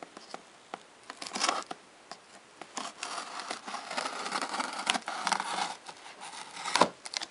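Scissors slitting the packing tape along a cardboard shipping box: scattered snips and crinkles, then a longer stretch of scraping, rustling cutting in the middle, with a sharp click near the end.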